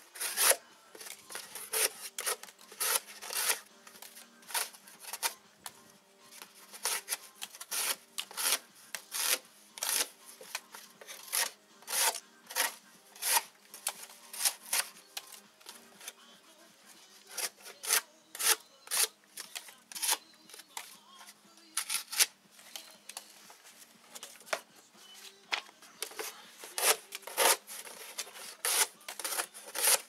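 Locking steel blade of a Victorinox Hunter folding knife slicing through corrugated cardboard in runs of short rasping strokes, about two a second, with brief pauses between runs.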